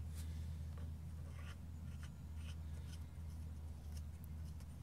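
Faint scattered scraping and clicking of metal parts being handled as the loosened lawnmower blade bolt comes off, over a steady low hum.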